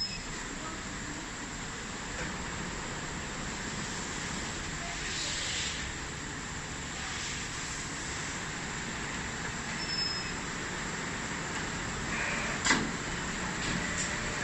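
Automatic template sewing machine running, a steady mechanical whirr with a few light clicks and one sharp click near the end.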